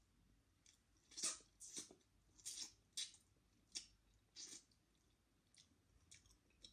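A person eating by hand, with wet chewing and mouth smacks in a run of about seven short sounds over a few seconds, then only faint ticks.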